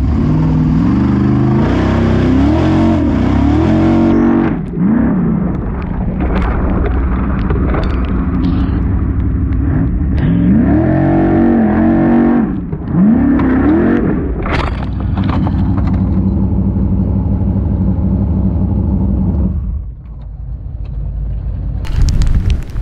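Formula Offroad unlimited-class buggy engine heard from the onboard camera inside the cockpit, revving hard in repeated rising and falling surges as it claws up the slope, with steadier high revs in between. The engine sound drops away sharply about twenty seconds in.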